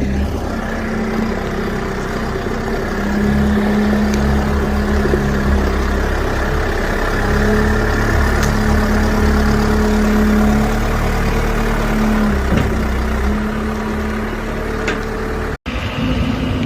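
Backhoe loader's diesel engine running steadily, its note shifting slightly up and down. It cuts out abruptly near the end and comes back at a different pitch.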